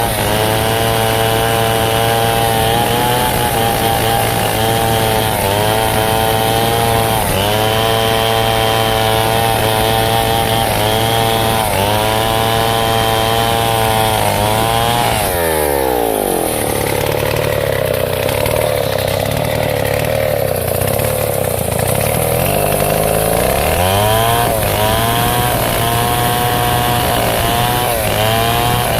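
Stihl chainsaw running at full throttle while cutting wood, its engine pitch repeatedly sagging under the load of the cut and recovering. About halfway through the revs drop sharply to idle for several seconds, then the saw is throttled back up to high revs.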